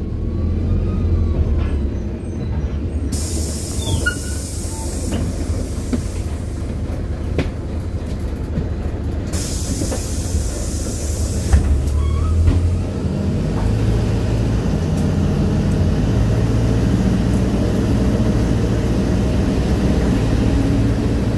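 PAZ 320414 city bus heard from inside the cabin: the engine runs steadily at a stop, two long hisses of air come through about three and nine seconds in, and from about thirteen seconds the engine note rises and strengthens as the bus pulls away.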